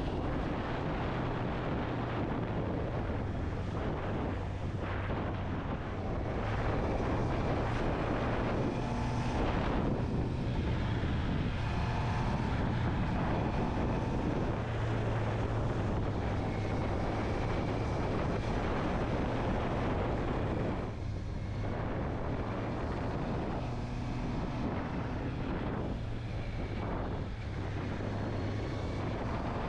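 Honda CB650R's inline-four engine running at a steady speed under way, with wind rushing over the microphone. The engine briefly eases off about two-thirds of the way through.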